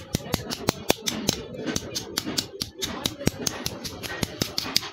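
Quick, irregular light tapping on steel, several sharp clicks a second, from hand metalwork on the saw-blade steel.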